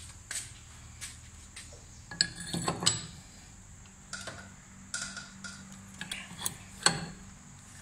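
Steel tools clinking and clanking together: a long steel pipe knocking against an adjustable wrench and a flywheel puller. About a dozen sharp ringing metal knocks, with the loudest cluster about two to three seconds in and another sharp clank near the end.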